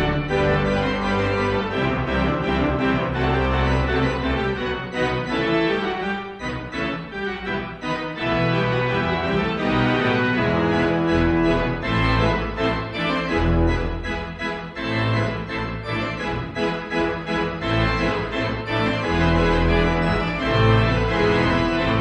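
Instrumental background music of sustained chords over a bass line.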